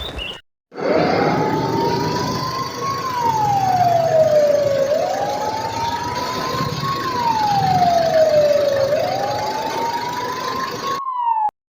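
A wailing siren rising and falling slowly, about four seconds to each rise and fall, three times over, then cutting off suddenly near the end.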